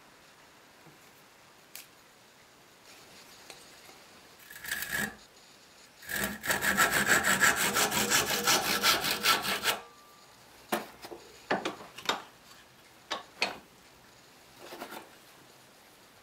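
Handsaw cutting a small wooden scrap clamped in a vise: a brief first scrape, then about four seconds of quick, even back-and-forth strokes, after which the sawing stops and a few light knocks follow.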